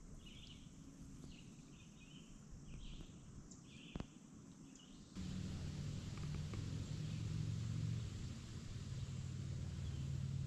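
Birds chirping in short, repeated calls over quiet river ambience, with a single click about four seconds in. About halfway through the sound switches to a louder, steady low rumble picked up by a camera on the kayak's bow.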